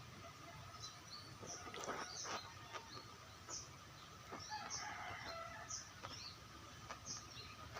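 Faint outdoor ambience of small birds chirping over and over, with a distant rooster crowing about five seconds in. A few faint clicks come around two seconds in.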